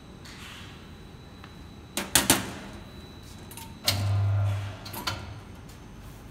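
Metal hand tools clanking on a paper cutter's steel table: a quick double clank about two seconds in, then a low hum lasting under a second and another knock.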